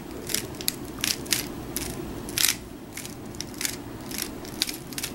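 Aolong v2 3x3 speedcube being turned quickly through a G-perm algorithm: irregular plastic clicks and clacks of the layers snapping round, a few a second.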